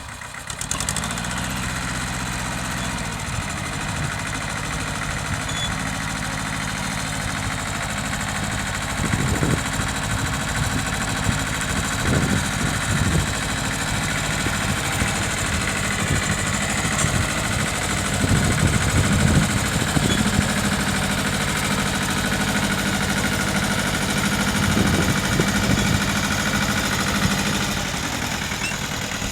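Mitsubishi tractor engine running while ploughing. It steps up about a second in and then runs steadily, growing louder in several surges as it works.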